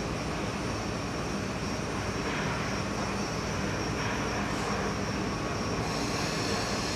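Steady engine drone of a heavy-load transporter, with an even hum, as it moves a steel hull block into position.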